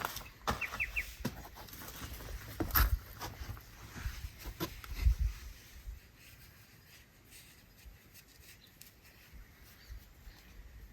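Scattered clicks and knocks of hand tools and metal fittings being handled during refitting of the excavator's injector pump fittings, a few of them louder with a dull thump, stopping after about six seconds. A bird chirps briefly three times about a second in.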